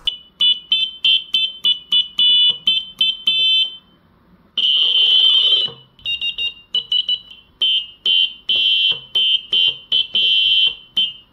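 Piezo buzzer on a homemade Arduino-based stylophone playing a run of short, tinny electronic notes as a stylus touches the key pads, the pitch stepping from note to note. A short pause about four seconds in, then a longer held note, followed by more quick notes.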